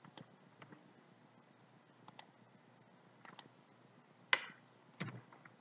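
Sparse, quiet clicks of a computer mouse and keyboard, often in quick pairs. The loudest comes a little after four seconds in.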